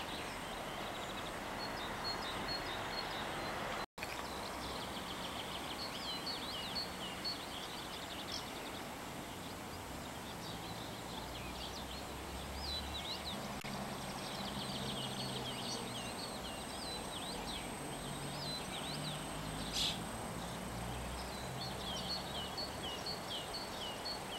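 Birds chirping and singing over a steady outdoor hiss, with short repeated calls and trills throughout. A faint low rumble joins from about halfway, and the sound cuts out briefly about four seconds in.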